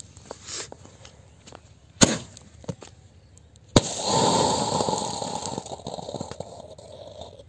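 Sky-shot firework firing under a coconut: a sharp bang about two seconds in as it throws the coconut upward, a second sharp crack nearly two seconds later, then a loud fizzing hiss of the burning charge spraying flame, slowly fading.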